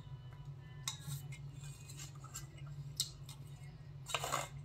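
Plastic spoon scraping and clicking against an aluminium foil food tray while eating: a few light clicks, then a short scrape near the end.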